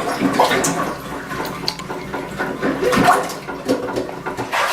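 Plunger working in a clogged toilet bowl, water sloshing and splashing in irregular strokes.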